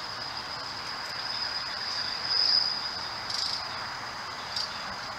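Crickets trilling: a steady high-pitched chirring that swells a little about halfway through.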